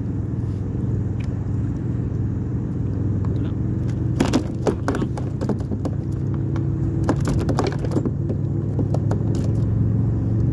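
Clattering and rattling as a small fish is handled on a plastic measuring board, in two bursts about four and seven seconds in, over a steady low rumble.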